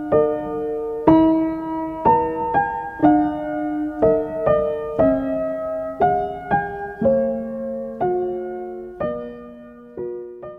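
Background piano music: gentle chords struck about once or twice a second, each note ringing and dying away, growing quieter near the end.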